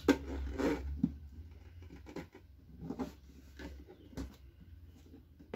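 Hands handling and turning over a black plastic portable speaker cabinet: scattered scrapes and light knocks, the sharpest right at the start, over a low steady hum.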